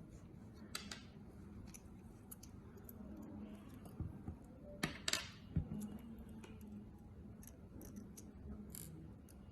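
Small metal parts of a vaporizer atomizer chamber being handled: a few faint, scattered clicks and taps, most of them clustered in the middle, as the top chamber is unscrewed and the pieces are handled.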